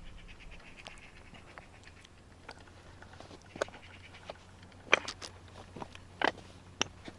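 Scattered faint clicks and ticks from a fishing rod and reel being worked while playing a hooked chub, with a few sharper clicks in the second half over a low steady hum.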